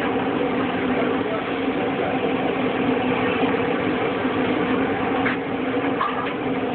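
A steady mechanical hum, like a motor or fan running, with a constant low drone and faint voices under it.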